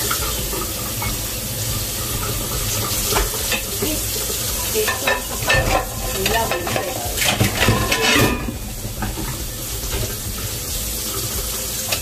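Pots, pans and utensils clattering and knocking over a steady sizzling hiss, with the clatter busiest in the middle of the stretch.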